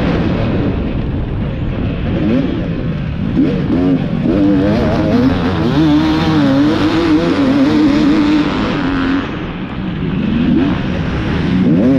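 450-class motocross bike engine heard from the onboard camera, revving hard and rising and falling in pitch as the throttle opens and closes. The revs drop briefly about nine seconds in, then climb again near the end.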